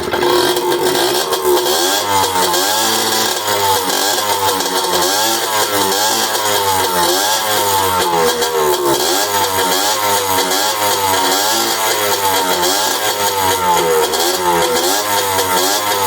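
Jianshe Coyote 80 two-stroke dirt bike engine running and being revved up and down over and over, about once a second, on its newly fitted carburetor. The revving tests the fuel mixture just after a half-turn adjustment of the carburetor screw.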